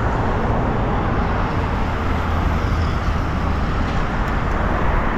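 Busy road traffic: a steady, loud rumble and hiss of passing cars.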